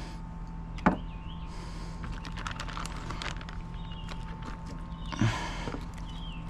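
Fillet knife scraping and clicking as it works along a small bluefish on a cleaning-station board, with a sharp knock about a second in and another short, louder noise near the five-second mark. A steady hum and faint chirping run underneath.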